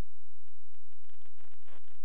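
Steady low electrical hum with irregular crackling clicks and a denser burst of crackle about three quarters of the way through, the noisy audio channel of an analog 5.8 GHz FPV video link.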